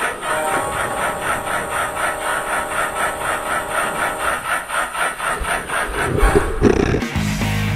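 Background music carrying a fast, even rasping rhythm of about four to five strokes a second, with a few low knocks near the end. Just before the end it cuts to a different track.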